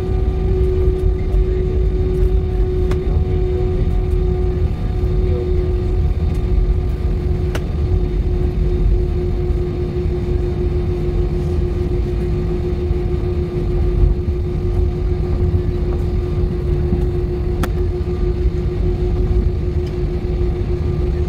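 Jet airliner cabin noise while taxiing: the engines' steady low rumble with a steady hum above it. A faint click is heard twice.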